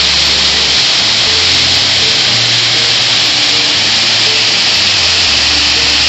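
Waterfall rushing: a loud, steady hiss of falling water splashing into a rock pool, with background music playing quietly underneath.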